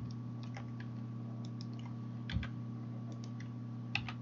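Scattered clicks of a computer keyboard and mouse, sounding as keys are tapped to move and rotate objects in Blender, with two heavier keystrokes about two and a half and four seconds in. Under them runs a steady low electrical hum.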